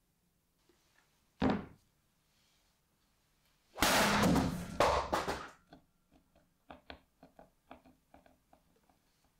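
A single dull thunk, then a large meat cleaver chopping through a whole watermelon: a loud crunching split of the rind and flesh lasting about a second and a half. A scatter of small ticks and taps follows.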